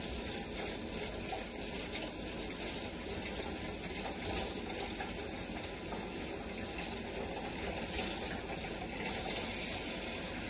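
Kitchen tap running steadily into a sink while a spatula is rinsed under it.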